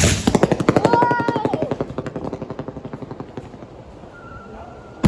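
Firework going off: a sharp bang, then a long run of rapid crackling pops that slowly fade away.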